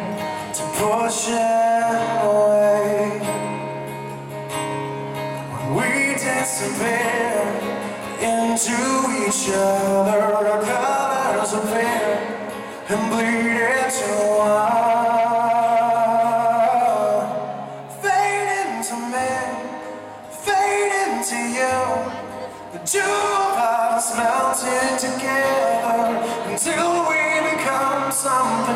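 Live rock band playing a song: a male lead vocal over strummed acoustic guitar and electric guitar, with a bass line underneath.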